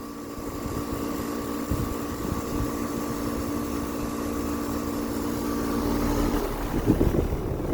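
Carrier Comfort central air conditioner's outdoor unit running: a steady compressor hum with the condenser fan's rush underneath. The hum fades near the end.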